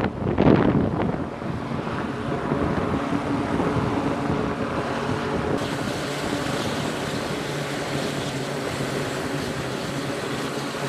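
An E-2D Hawkeye's twin T56 turboprop engines run with the propellers turning, a steady drone with several steady tones. A loud rush of noise comes about half a second in.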